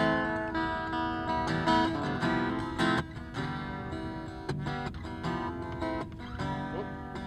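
Acoustic guitar strummed in chords: an instrumental passage between sung verses of a live song.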